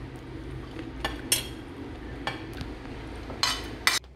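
Metal fork clinking and scraping against a ceramic dinner plate while eating, about six sharp clinks spread over the few seconds, over a steady low background hum.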